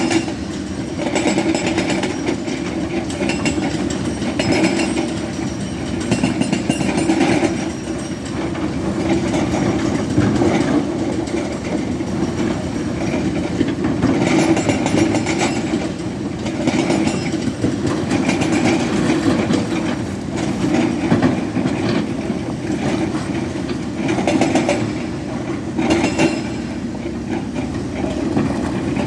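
Hydraulic rock breaker on a Tata Hitachi Zaxis 220 LC excavator hammering rock, a rapid, unbroken clatter of blows over the excavator's running engine.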